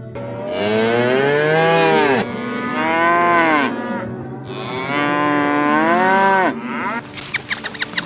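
Cow mooing: three long moos, each bending up and then down in pitch, followed near the end by a run of short clicks.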